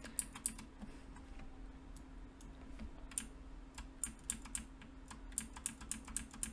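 Computer keyboard arrow keys clacking as they are tapped one press at a time: a few taps at the start, a pause of about two seconds, then a quicker run of taps through the second half.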